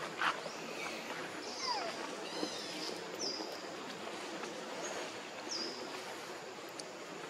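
Outdoor ambience: a steady background hiss with a short, high chirp repeating about every two seconds, and a brief sharp sound just after the start.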